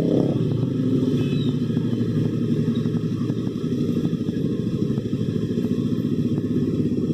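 Motorcycle engines running steadily, with a faint regular ticking at about four a second.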